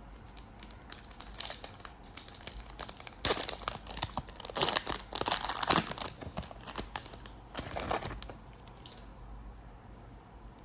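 Plastic wrapper of a football trading-card pack being torn open and crinkled by hand, in irregular bursts of crackling that die away about nine seconds in.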